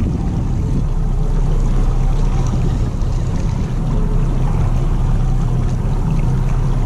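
A boat's engine running steadily at trolling speed, a low, even drone, with water and wind noise over it.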